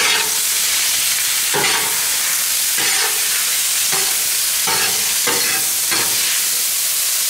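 Tater tots and frozen peppers and onions sizzling steadily on a hot flat-top griddle while a metal spatula scrapes and turns them, a scrape about every second.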